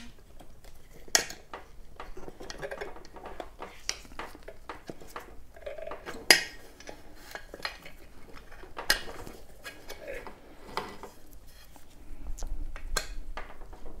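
Steel tire levers clinking and scraping against the metal wheel rim as the tire bead is pried off, in sharp irregular clinks, the loudest about six seconds in. A low rumble of handling noise rises near the end.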